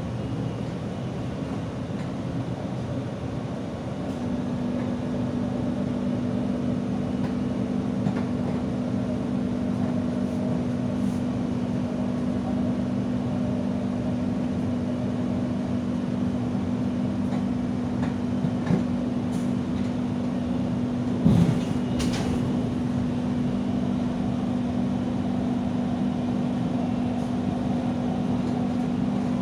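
Doha Metro driverless train running along its track, heard from inside the front carriage: a steady drone with a low hum that steps up in pitch about four seconds in. A few short knocks come through, the loudest about 21 seconds in.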